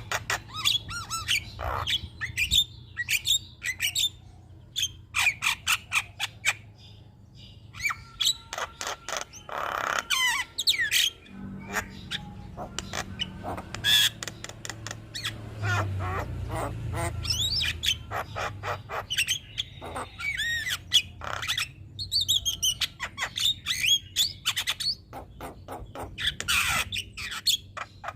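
Javan myna (jalak kebo) calling and singing in a rapid, varied stream of harsh squawks, clicks and short whistled notes.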